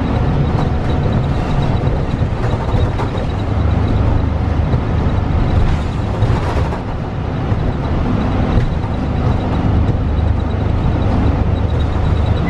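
Cabin noise inside a moving 2012 Gillig low-floor hybrid transit bus, with a Cummins ISL9 diesel and Voith DIWAhybrid drivetrain. It is a steady, loud low rumble mixed with road noise and scattered small rattles.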